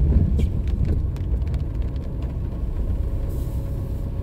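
Steady low rumble of a car driving on wet streets, heard from inside the cabin, with a few light ticks in the first second and a half.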